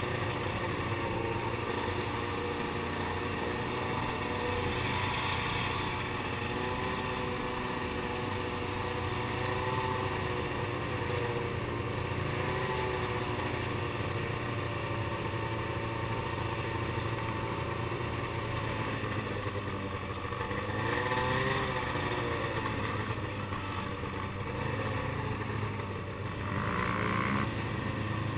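Snowmobile engine running steadily at low speed, with a brief rise and fall in revs about two-thirds of the way through.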